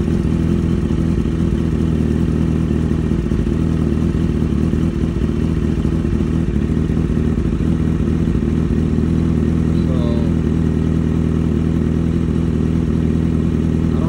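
Suzuki GSX-R motorcycle's inline-four engine idling steadily as it warms up after starting, during a check for a misfiring cylinder.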